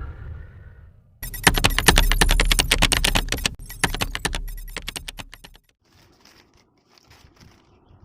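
A fast run of metallic clicks and rattles, starting about a second in and lasting about four seconds, with low handling rumble, as the small precision screwdriver kit is handled; then only faint scattered rustles.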